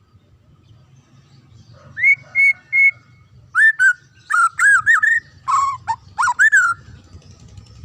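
White-rumped shama (murai batu) singing loud, rich whistled notes: three short level whistles about two seconds in, then a quick run of rising and falling whistles that stops about a second before the end.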